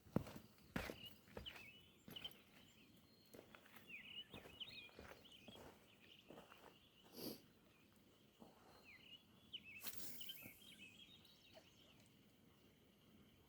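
Faint footsteps of a hiker walking, about one step a second, with small birds chirping in short high notes throughout; a brief louder rustle about ten seconds in.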